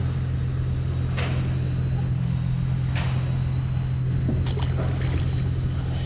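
A boat's motor running with a steady low hum, with a few short sharp knocks about a second in, around three seconds in and again near the end.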